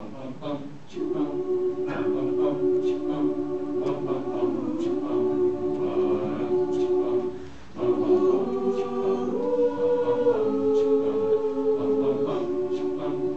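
A mixed choir of women's and men's voices singing a cappella in long held chords, with a short break between phrases about seven and a half seconds in.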